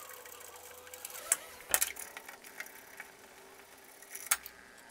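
A few light clicks and knocks from a socket and spanner working the rear sway bar link bolts on a Nissan NP300. The loudest is a short cluster of sharp knocks about two seconds in.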